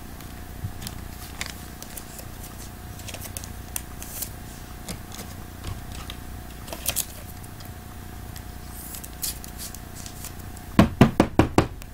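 Hands handling a small cardboard trading-card box and the cards inside it, with light scattered clicks and rustles. Near the end comes a quick run of about six sharp taps in one second.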